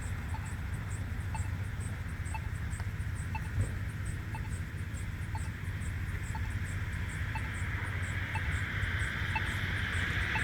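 Accessible pedestrian signal push button ticking its locator tone about once a second while the signal says wait, over a steady low traffic rumble. Near the end a passing vehicle grows louder.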